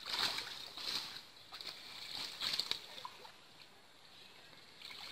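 Pond water sloshing and splashing as a fine mosquito net is hauled up out of shallow water and drains through the mesh. A few splashes come in the first three seconds, then it goes quieter.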